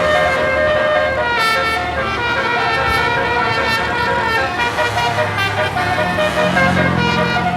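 A bus's telolet basuri, a 36-note musical air horn, playing a melody without pause, the notes changing about every half second to a second. A low rumble runs underneath and grows a little stronger near the end.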